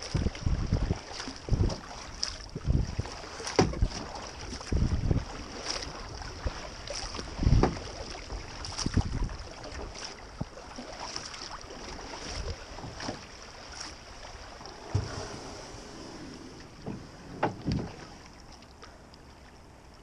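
Double-bladed kayak paddle dipping and splashing in river water, with drips off the blades and gusts of wind on the microphone. The strokes come roughly once a second and die away near the end as the kayak glides.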